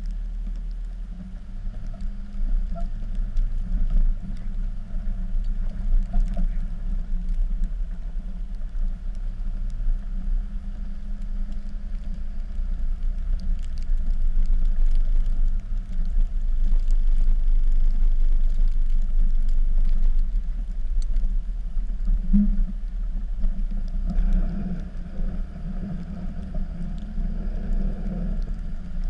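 Dodge pickup's Cummins diesel engine running steadily while plowing snow, its low hum rising and falling in loudness, with a change in tone about four-fifths of the way through.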